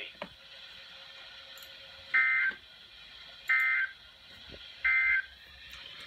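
Three short two-tone digital data bursts about a second apart, played through a Midland weather radio's speaker: the SAME code of a NOAA Weather Radio broadcast, short enough to be the end-of-message bursts that close the severe thunderstorm warning.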